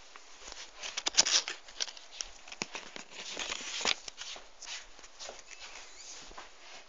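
Rustling, rubbing and knocking from a phone being handled and moved about, in irregular bursts with a cluster of sharp knocks about a second in and another just before four seconds.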